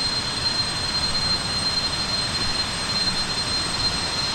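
A constant rush of water with a steady, unbroken high-pitched drone over it: the forest creature sound heard all along the trail, which the walkers take for a wild animal.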